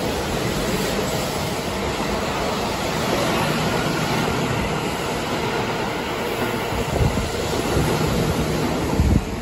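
Keihan 3000 series electric limited express passing through a station at speed, close by: a steady rush and rumble of wheels on rails and moving air, with a few louder knocks near the end.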